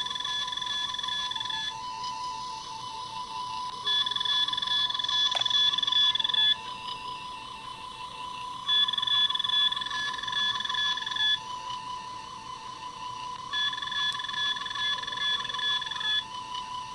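Star Trek Mark X medical tricorder prop's sound chip playing its electronic scanning sound, a fast-pulsing warble. A higher two-tone alert sound is laid over it, sounding for about two and a half seconds and repeating about every five seconds: the "I" sense alert mode.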